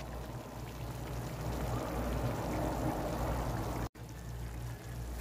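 Meat-and-vegetable stew in a pan bubbling at a boil, a steady pattering like light rain that grows a little louder, then breaks off for an instant about four seconds in before going on more quietly.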